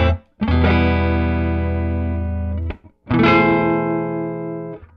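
Epiphone archtop hollow-body electric guitar played through a Dusky D₂O tube amplifier: a short chord, then two strummed chords, each left to ring for about two seconds and then damped.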